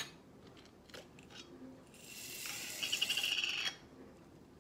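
Dehydrated peas poured from a jar into an enamel stock pot: a dry pattering rattle of small hard pieces that builds for about a second and a half, starting about two seconds in. There is a sharp click at the start.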